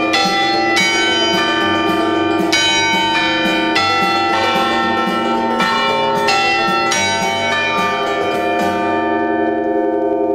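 Church bells in the cathedral tower's bell chamber, heard at close range: a steady run of strikes, a little under two a second, each ringing on over the ones before. The strikes stop about three-quarters of the way through, leaving the bells' ringing to fade.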